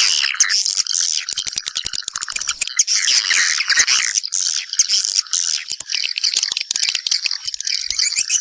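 Swiftlets twittering and chirping in a dense, continuous chorus, mixed with rapid clicking. It is the nest call of swiftlets calling their mates back to nest.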